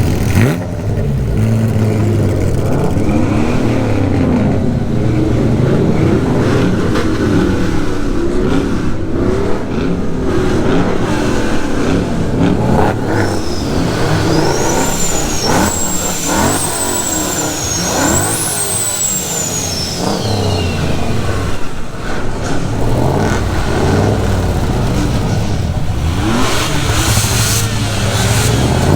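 Car engines running and revving, their pitch rising and falling again and again, with a high whine that climbs and falls in the middle.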